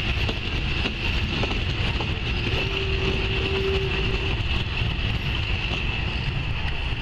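A steam-hauled train of passenger coaches rolling past at close range: a steady low rumble of wheels on the rails, with a short steady tone around the middle.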